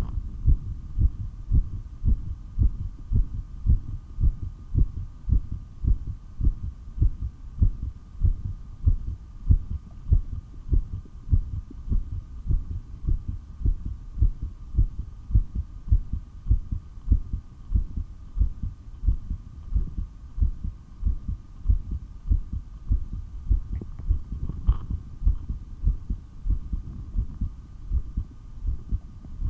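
Human heartbeat heard through a stethoscope, a steady, even, pounding low beat, recorded during a prolonged breath-hold with as few breaths as possible. A faint steady hum lies under it, and a single light click comes about three-quarters of the way in.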